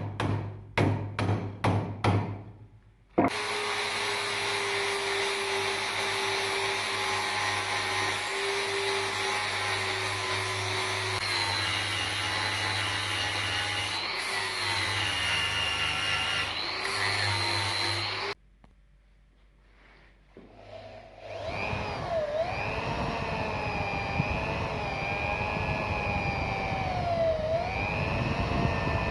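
About six sharp knocks in quick succession, then an electric power tool running steadily for about fifteen seconds. It stops, and after a short quiet gap a power tool starts again, its pitch wavering.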